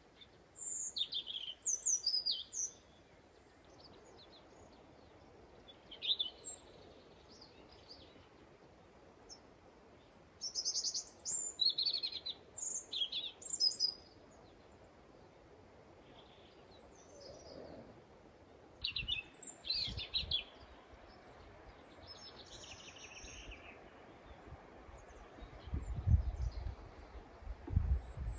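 Wild birds chirping and singing in several separate bursts of quick high notes, over a faint steady background hiss. A few low rumbles come near the end.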